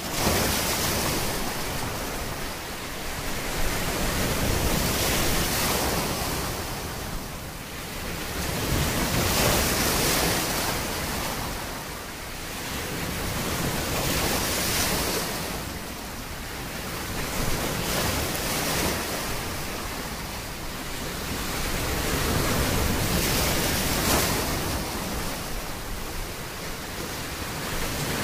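Ocean surf: a continuous rushing of waves that swells and eases every four to five seconds.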